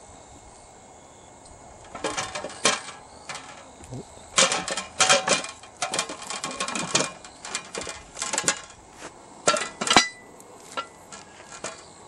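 Stainless steel parts of a honey press clinking and clanking as the pressing plate and screw are fitted into its perforated basket. A run of sharp metallic knocks begins about two seconds in, with a single loud one near the end.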